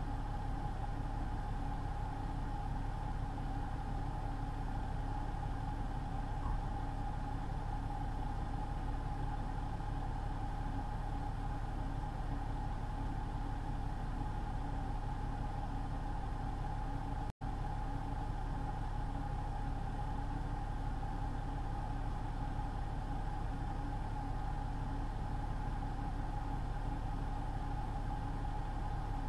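Steady engine and road drone inside a semi truck's cab, with a constant hum running through it. The sound cuts out for an instant about two-thirds of the way through.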